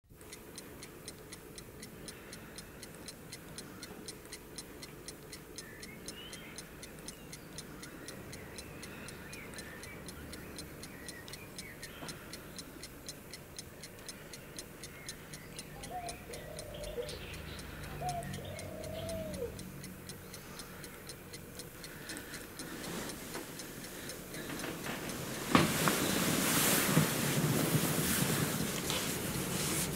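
A clock ticking steadily and evenly in a quiet room. Near the end, a louder rustling noise starts suddenly and covers the ticking.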